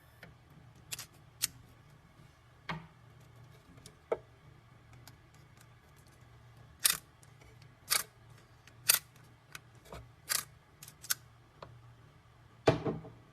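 A series of sharp, irregular clicks and knocks from hands working a key-cutting machine, about a dozen over the stretch, the loudest near the end.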